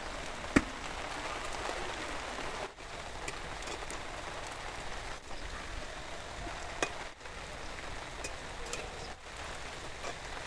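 Maggi noodle fingers deep-frying in hot oil in a kadai: a steady crackling sizzle. A metal spatula clicks sharply against the pan twice, about half a second in and again near seven seconds.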